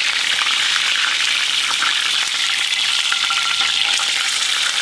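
Steak searing in hot olive oil in a cast-iron skillet: a steady sizzle with many small spattering pops.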